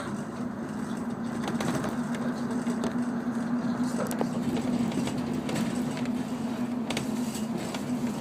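Airport ramp bus running, heard from inside the cabin: a steady drone with one held tone, over road noise, with a few light rattles.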